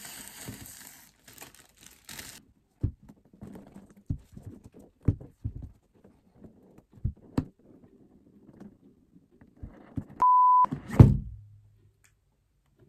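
Plastic shrink-wrap crinkling for about two seconds, then a series of light knocks and thuds as the cardboard iPad box is handled on a table. About ten seconds in, a short steady beep tone, followed at once by a loud thud.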